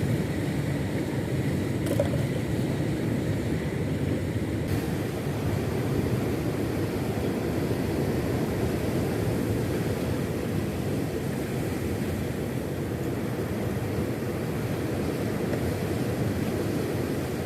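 A small fishing boat under way at sea: the steady drone of its motor mixed with the rush of water and wind.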